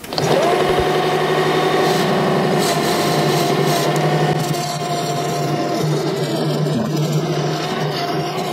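Metal lathe starting up and running, its cutter taking a cut across the face of a brass flywheel, with a steady whine over a rough scraping as the metal is cut. The body of the cutter is chewing into the brass rather than cutting cleanly. The whine eases off about six seconds in.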